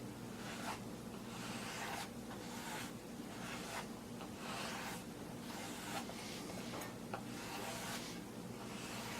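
Fingers pressing and rubbing along a new foam speaker surround where it is glued to the cone's edge: soft repeated rubbing swishes, about one a second, with a few light clicks, over a steady low hum.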